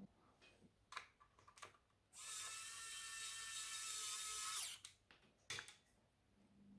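Small electric screwdriver whirring for about two and a half seconds as it drives a screw into the laptop's drive bracket, with a few light clicks of handling before and after.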